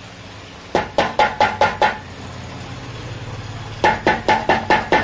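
Rapid metallic tapping, metal striking metal with a ringing note, about five strokes a second. A run of about six strokes comes about a second in, and another run starts near the end.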